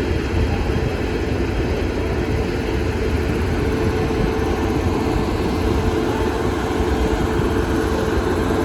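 Steady, loud drone of a moving vehicle, a low rumble with a constant hum, unchanging throughout.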